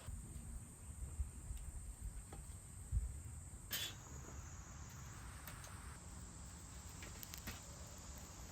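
Faint steady high-pitched insect chorus over a low rumble of wind on the microphone, with a sharp click a little under four seconds in.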